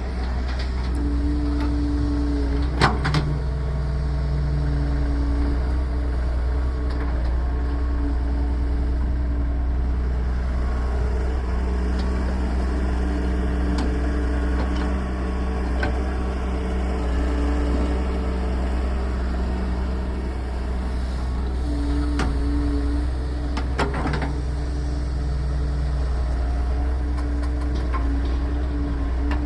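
Excavator engine running steadily, with higher working tones that rise in and drop out every few seconds as it digs and loads. Two sharp knocks, one about three seconds in and another near the end.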